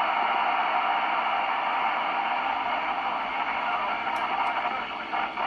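Steady FM static hiss from a Yaesu FT-847 transceiver's speaker, tuned to an amateur FM satellite downlink on 2 m between transmissions.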